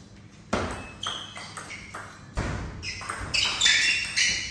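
Table tennis rally: the ball clicks sharply against the bats and the table roughly every half second, with a louder, busier run of hits near the end.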